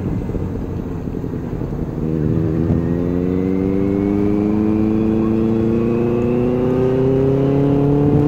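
Benelli 600i four-cylinder motorcycle engine under way, heard from the rider's seat. It eases off for the first couple of seconds, then pulls away, its pitch rising steadily to the end.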